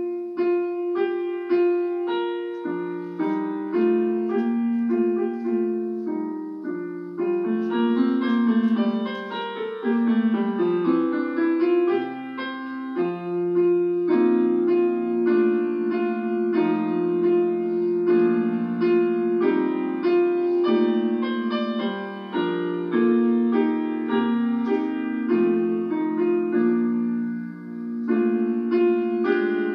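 Solo piano music: a continuous flow of notes over held lower notes.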